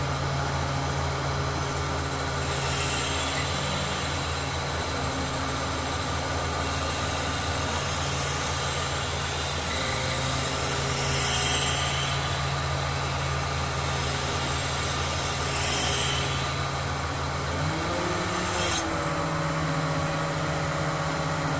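Mobile crane's diesel engine running steadily under a hoisting load, its note stepping up near the end as the lift picks up. A few brief hisses come and go over the drone.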